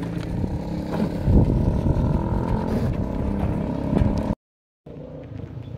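Handcart loaded with plastic jerrycans knocking and rattling as it is pushed along a dirt road, over a steady engine-like traffic noise; the sound cuts out for a moment about four seconds in.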